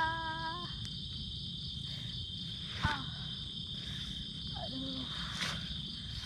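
Crickets chirring in a steady, unbroken high chorus. A short knock sounds just before three seconds in.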